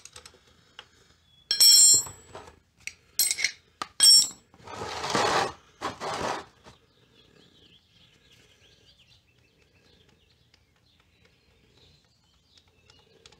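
Sharp metallic clinks, the first one ringing, as tools are handled at a scooter's oil drain plug, then a rushing scrape of about a second as an oil drain pan is slid across the concrete floor under the engine. After that only faint high chirps are heard.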